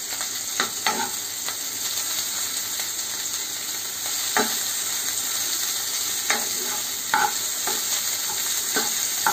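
Chopped capsicum and ginger-garlic sizzling in hot oil in a kadai, with a steady high hiss. A steel spoon stirs the pieces, scraping and knocking against the pan at irregular moments, most sharply near one, four and a half, six and seven seconds in.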